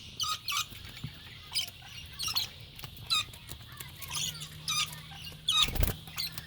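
Rainbow lorikeets giving short, shrill screeching calls, repeated every second or so. There is one dull thump just before the end.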